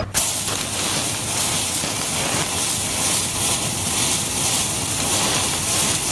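Steady hiss of burning matches as a row of them catches fire, starting suddenly.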